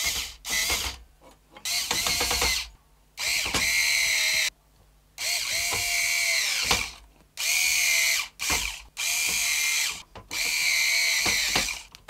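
Cordless power screwdriver driving the fan-mounting screws into a PC case's fan bracket in about eight short runs of roughly a second each. The motor whine sags in pitch as each run ends, with light clicks between the runs.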